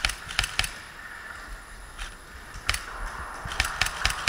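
Airsoft guns firing single shots, each a sharp crack, in scattered runs: three in the first second, a couple of lone shots around the middle, then a quick string near the end.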